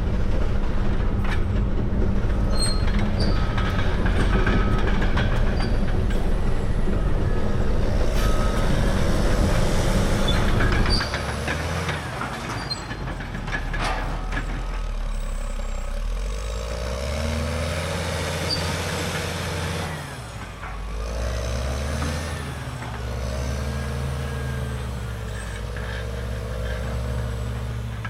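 Caterpillar D6R dozer's C9 diesel engine working hard under load, with a few sharp clanks. About eleven seconds in it drops to a lower level, and the engine pitch rises and falls after that.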